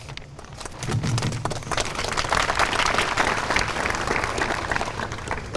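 Audience applauding with many hands clapping, swelling about a second in and easing off near the end.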